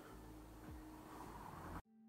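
Near silence: faint room tone with a low hum, cutting off to dead silence near the end.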